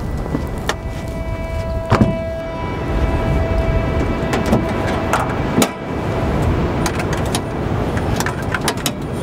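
Clicks and knocks from a four-wheel-drive's door and bonnet being opened and handled, over a steady low rumble.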